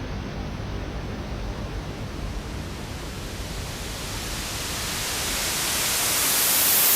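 Electronic oscilloscope music made of noise: a low, rumbling wash that turns into a bright hiss, growing steadily louder over the last three seconds.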